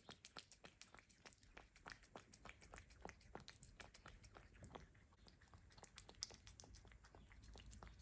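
Bengal cat licking food off a plate: a steady run of faint licking clicks, several a second.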